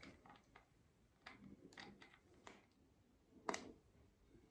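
Near silence, broken by a few faint clicks from a plastic alarm clock being handled, the clearest about three and a half seconds in.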